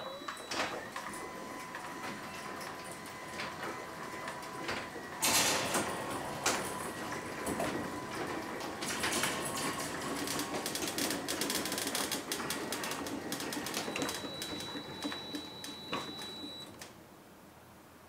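Ryobi One+ battery-powered garage door opener running on a 4 Ah 18V battery, driving an old, heavy garage door up. A steady faint whine at first, then about five seconds in the door starts moving with a loud clattering rattle that carries on until it dies away near the end.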